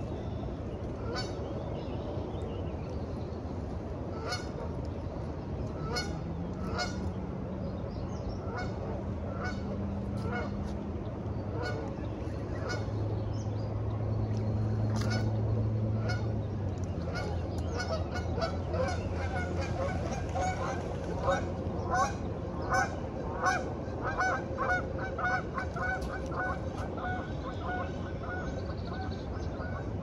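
Geese honking, scattered calls at first, then a fast run of many honks in the second half. A low steady drone swells and fades in the middle.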